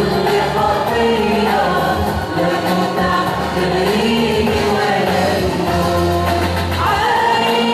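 Church choir singing an Arabic Christian hymn, with long held notes over sustained low bass notes.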